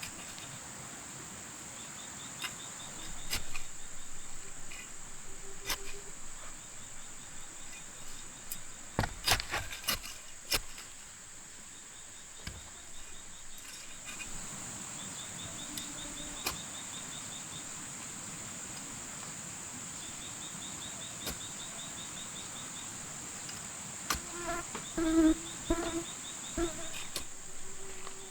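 Insects calling: a steady high-pitched drone, with short rapid pulsed trills of cricket-like insects repeating every few seconds. A few sharp knocks sound about a third of the way in, and a brief pitched call near the end.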